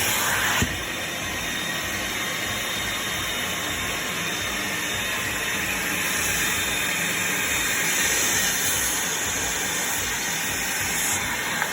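Stanley SL19910P-3 900 W, 3-gallon wet/dry vacuum running steadily, sucking rinse water out of a sofa's fabric through its nozzle tool. Its level dips slightly with a short click about half a second in.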